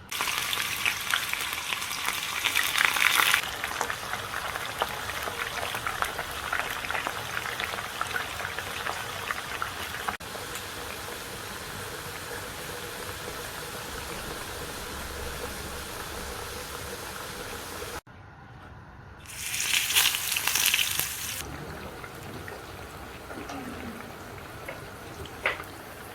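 Food frying in hot oil in a pan: a steady sizzle that flares loud for a few seconds at the start and again about 19 seconds in, as ingredients go into the hot oil, and eases off in between.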